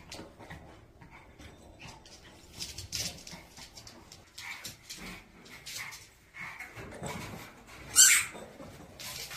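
A dog whimpering with short yips, scattered through, and one sharp, much louder sound about eight seconds in.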